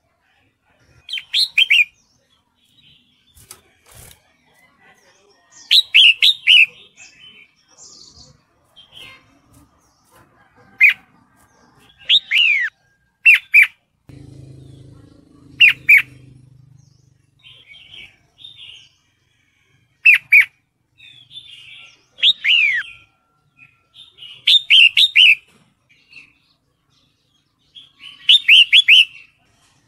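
Red-whiskered bulbul calling: short bursts of two to four quick, sliding whistled notes, repeated every few seconds. The uploader presents these as a female in breeding condition calling a male.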